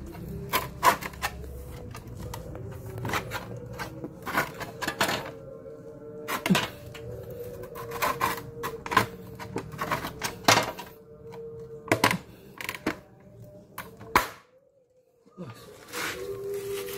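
Irregular sharp metallic knocks and clinks of thick electrowon copper plate being worked off its cathode blank, over a steady humming tone. The sound drops out briefly about fourteen seconds in.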